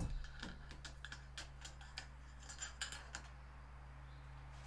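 A single knock, then light metallic clicks and scrapes as the inner damping cartridge is drawn up out of a CRF250R's fork tube.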